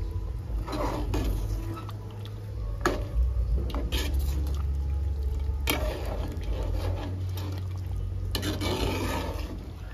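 A metal spoon stirring and scraping cooked mutton and its liquid through masala in a cooking pot: wet, sloshing sounds with several sharp knocks against the pot, over a steady low rumble.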